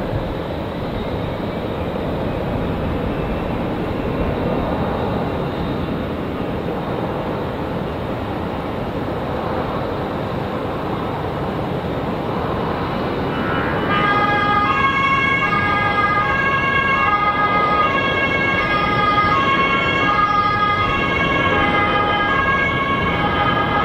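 Steady rushing noise of a jet airliner's engines. More than halfway through, music with a repeating stepped melody comes in over it.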